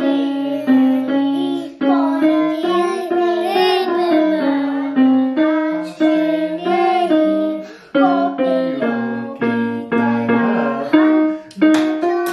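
Electronic keyboard playing a melody in held notes, with a young child singing along.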